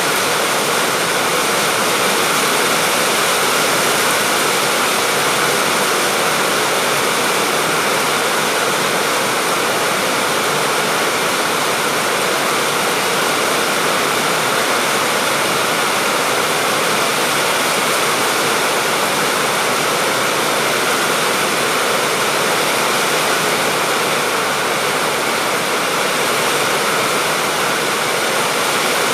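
Steady rain falling, a dense even hiss with no single drops or thunder standing out.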